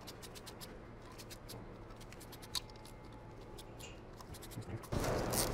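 Faint light clicking and scraping of bolts being threaded by hand into a transmission oil pan, with one sharper metallic click about two and a half seconds in. A louder hiss of background noise comes in near the end.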